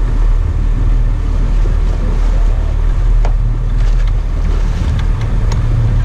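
Sport-fishing boat's engine running with a steady low drone under wind and water noise, with a few brief sharp clicks.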